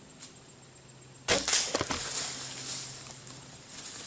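A compound bow shot goes off suddenly about a second in, and the shot doe then crashes off through dry leaf litter in a rush of rustling that fades over the next couple of seconds.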